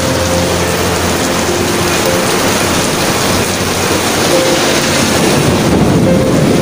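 Heavy rain pouring down onto a paved street, a loud, steady, dense hiss.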